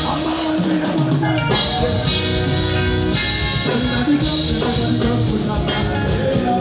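Band music with a drum kit and pitched instruments playing steadily and loud, as at a sound check.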